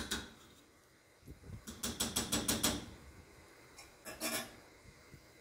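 A quick run of light clicking taps from kitchenware at the cooking pot, about five a second, starting about a second and a half in, with a couple more taps near the end and quiet between.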